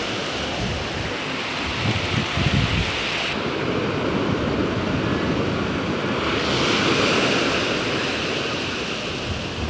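Ocean surf washing on the shore in a steady rush of noise, with wind buffeting the microphone in low rumbles about two seconds in.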